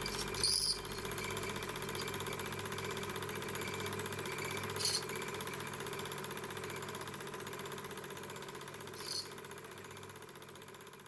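Cine film projector running, a steady motor hum with a fast mechanical clatter, after the film has run out of the gate. Three sharp clicks come about four seconds apart, and the whole sound gradually fades out.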